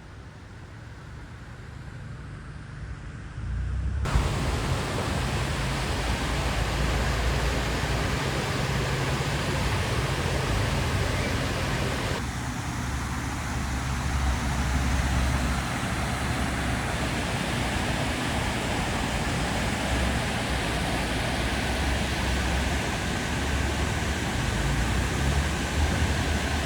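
Waterfall's steady rushing roar, a dense even noise. It is quieter and muffled for the first few seconds, then comes in full from about four seconds in.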